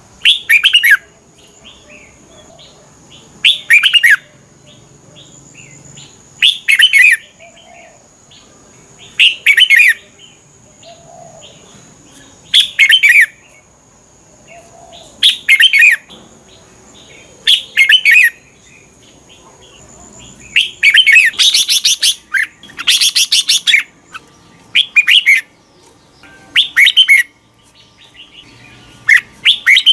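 Red-whiskered bulbul singing: short, loud whistled phrases every two to three seconds, with a longer run of song about two-thirds of the way through.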